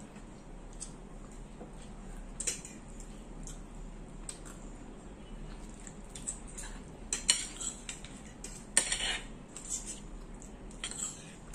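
Metal forks and spoons clinking and scraping against plates and a bowl during a meal, in scattered sharp clicks, the loudest clusters about seven and nine seconds in.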